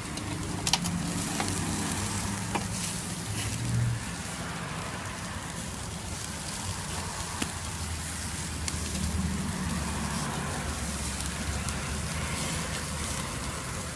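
Bacon-wrapped brats, steak and hot dogs sizzling over a charcoal grill, a steady hiss, with a few sharp clicks of a fork against the meat and grate as pieces are turned.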